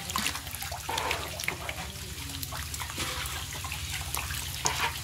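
A mass of live deshi catfish squirming in shallow water: a busy, irregular wet splashing and slapping of bodies against each other and the water, over a steady low hum.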